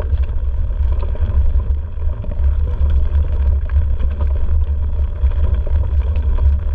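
Mountain bike rolling fast downhill on a leaf-covered dirt trail: a steady deep rumble of wind buffeting the microphone, with tyre noise on the leaves and frequent small rattles and clicks from the bike.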